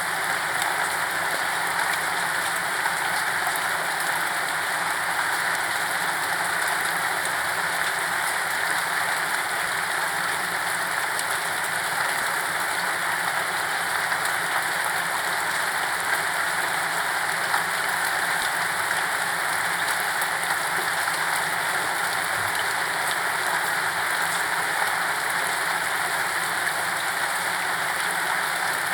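Steady rain falling without letup, an even hiss with small scattered drop ticks; no thunder or music.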